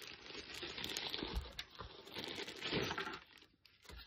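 Plastic packaging crinkling and rustling as it is pulled off a light stand, dying away about three seconds in, followed by a short soft knock near the end.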